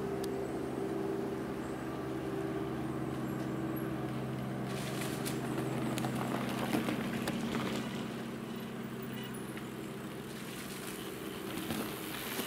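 Mountain bikes rattling and clicking as they come down a dirt forest trail, starting about five seconds in and recurring to the end. Under them runs a steady low motor hum that fades near the end.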